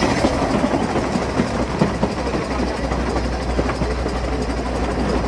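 Narrow-gauge steam locomotive and its train running, heard from the locomotive's tender: a steady low rumble with irregular clattering and knocks.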